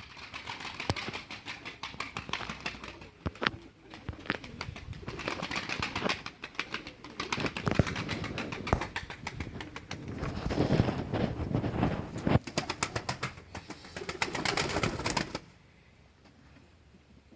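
Pigeons cooing amid many sharp knocks and rustling flutters of wings, all stopping about fifteen seconds in.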